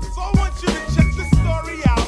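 Hip hop track playing: a rap vocal over a drum beat with a strong kick drum and deep bass.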